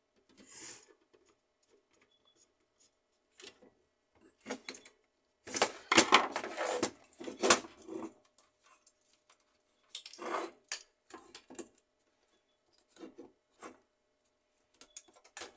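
Clicks and rattling of an HP LaserJet 1300 fuser assembly's plastic and metal parts being handled and fitted together, with a louder stretch of clatter in the middle.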